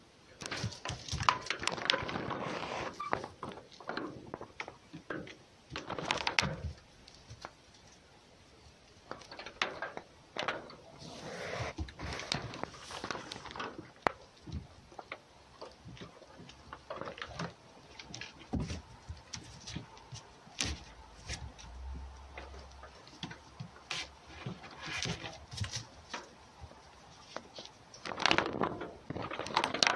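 A cat and a fox scuffling on a wooden board: scattered knocks and paw scrabbling, with short rustling bursts, busiest near the start and again near the end.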